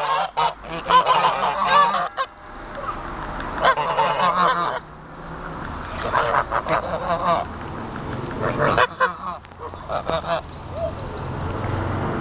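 Domestic geese honking in several bouts, many short overlapping calls at once, with quieter gaps between.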